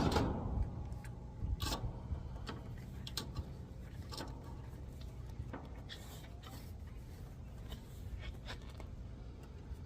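Hands working with small electrical parts and wiring: a sharp knock at the start, then scattered clicks and rubbing, over a steady low rumble.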